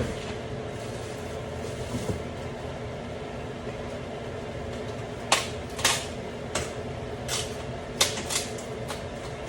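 Sharp clicks and knocks of kitchen items being handled, about seven in quick succession in the second half, over a steady low hum.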